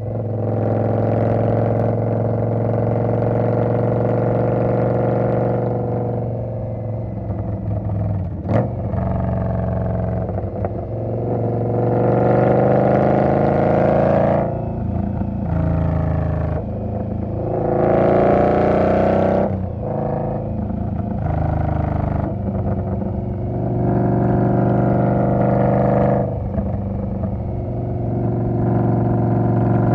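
2020 Indian Scout's V-twin engine running under way, its pitch rising and dropping back several times as it is revved through the gears. There is one sharp click about eight and a half seconds in.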